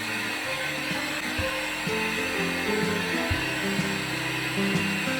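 A cheap Dyson-style hair dryer blowing steadily, with background music playing over it.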